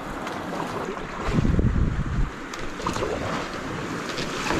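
Kayak paddle strokes splashing and river water moving around the hull. A gust of wind buffets the camera microphone for about a second, starting about a second in.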